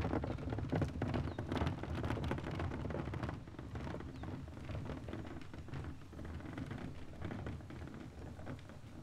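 Plastic wheelie bin rolling on its wheels across a tarmac driveway: a rumbling, clattering rattle that grows fainter as the bin is pulled away.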